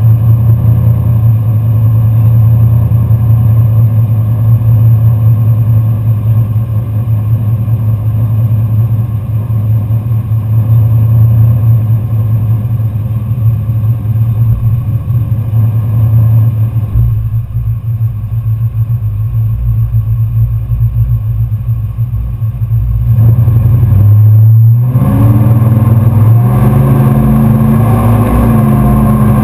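4x4 pickup truck engine idling with a steady low note, then revved about twenty-four seconds in, getting louder with its pitch climbing in steps as the truck pulls away through the swamp water, tires throwing mud.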